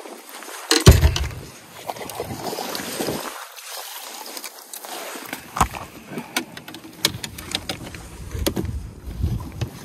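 Knocks and thumps aboard a small fishing boat, the loudest about a second in, with scattered clicks and patches of low rumbling noise.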